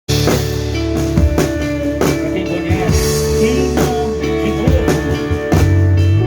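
Live band playing a rock-style song: drum kit hits over sustained guitar and keyboard chords, with some sliding notes.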